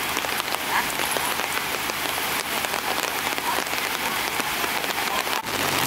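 Steady rain falling on wet ground, with many small drop ticks. Near the end, after a brief break, a truck engine is heard running.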